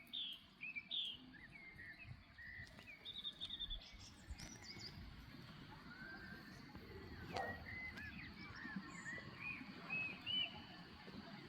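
Birds chirping and calling, many short rising and falling notes one after another, over a faint steady low rumble of background noise.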